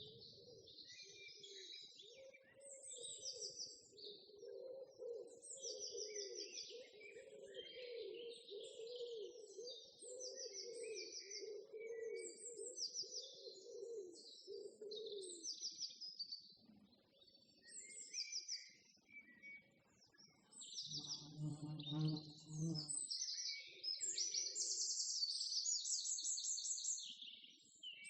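Small songbirds chirping and trilling throughout, in overlapping quick repeated phrases. A wavering lower tone runs under them for the first half, and a low hum lasts about two seconds just past the middle.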